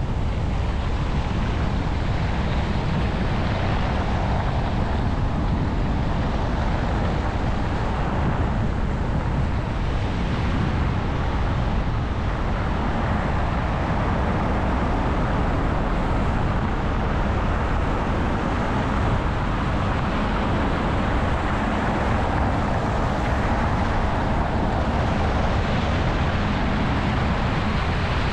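Car driving on slushy, snow-covered city roads, heard through a camera mounted outside the car: a steady rush of tyre and road noise with low wind rumble on the microphone.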